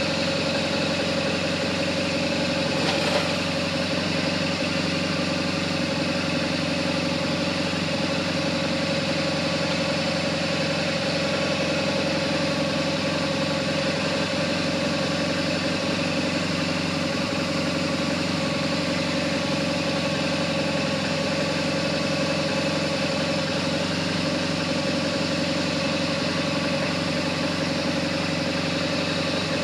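BMW GS boxer-twin engine idling steadily, with one short click about three seconds in.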